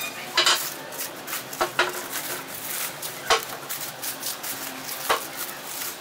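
Clear plastic wrap and bubble wrap crinkling as it is pulled off a heavy steel drive-belt pulley by hand, with a few sharp clinks along the way.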